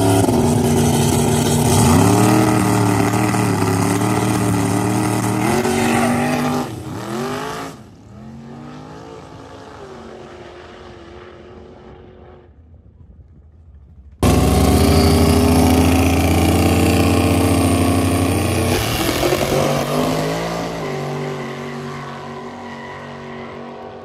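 Two drag cars launching side by side at full throttle, the engine pitch climbing, dipping once at a gear change about two seconds in, then fading as the cars run away down the track. About fourteen seconds in the sound cuts abruptly to another loud engine run, which also fades.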